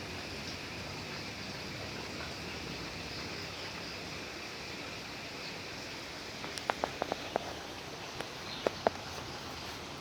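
Steady background hiss, with a quick run of five or six sharp clicks about two-thirds through and two more near the end, likely a cat scratching behind its ear.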